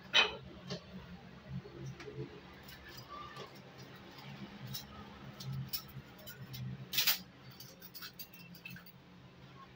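Scattered light clicks and clinks over a low steady hum. The loudest click comes just after the start, another about seven seconds in, with many smaller ticks between.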